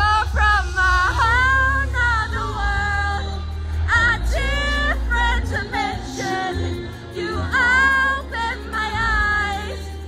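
Live pop concert music heard from the audience: a woman singing, her notes sliding and wavering in pitch, over a deep, steady bass.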